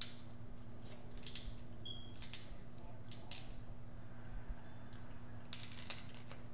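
King crab leg shells cracking and snapping as they are pulled apart by hand: a series of short, scattered crackles, over a steady low hum.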